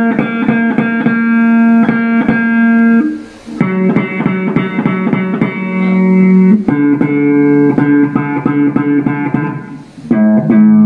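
Replica Gibson Les Paul Custom electric guitar played through a Marshall amp: held notes and chords, picked again and again, moving to a new chord about every three seconds. The guitar is still in its unset-up state, which the luthier says buzzes because the nut slots are cut too deep and the strings touch the first fret.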